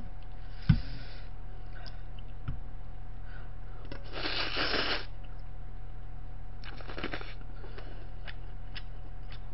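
Slurping noodles from a stainless steel bowl held to the mouth: one long slurp about four seconds in and a shorter one around seven seconds. There is a sharp knock under a second in and scattered light clicks, over a steady low hum.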